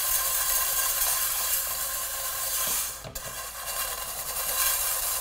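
Stainless steel chainmail scrubber scrubbing around the inside of a cast iron skillet: a steady metallic scratching hiss with a short break about three seconds in. The pan is being scoured clean of stuck-on food left from cooking.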